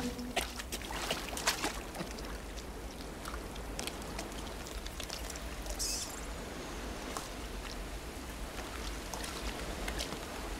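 River water sloshing and trickling, with scattered small splashes.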